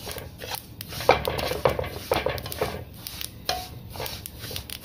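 A metal spoon scrapes and stirs sesame seeds around a metal pan as they toast, in quick strokes about twice a second.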